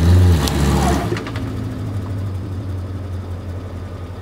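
Suzuki Samurai's 1.3-litre four-cylinder engine revving briefly as the 4x4 climbs up over a ledge, the revs rising and then dropping away in the first second, with a few short knocks around then. It then runs steadily at low revs.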